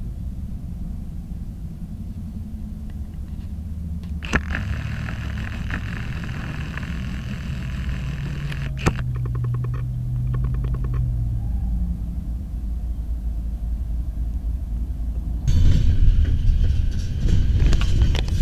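BNSF diesel freight locomotive rumbling as it approaches at low speed, with a steady pitched tone sounding for several seconds in the middle. About three seconds before the end, the noise of tank-car wheels rolling past close by takes over, louder and rougher.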